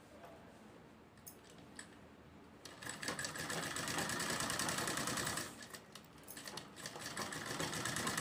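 Sewing machine stitching a zipper onto a fabric lining piece, a fast even run of stitches that starts about three seconds in, breaks off briefly past the middle, then starts again. A few light clicks of handling come before it.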